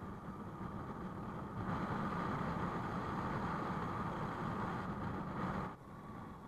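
Motor scooter on the move: a steady engine hum mixed with wind and road noise, dropping noticeably quieter near the end.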